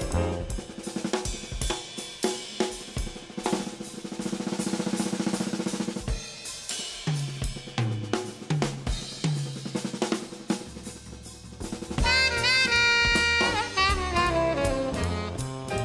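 Jazz drum kit solo: snare strokes, cymbals and a roll, then a few tom strokes whose pitch drops. About twelve seconds in, tenor saxophone and upright bass come back in.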